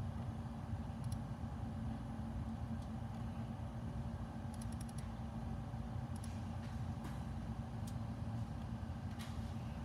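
Steady low hum with a faint constant tone, overlaid by scattered light clicks, including a quick run of about five near the middle.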